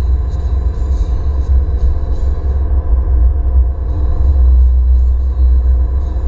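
Steady low rumble of an Alfa Romeo MiTo driving at road speed, picked up inside the cabin by a camera mounted on the windscreen.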